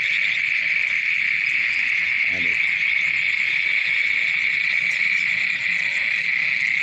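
A dense insect chorus, typical of crickets, trilling steadily and high-pitched without a break.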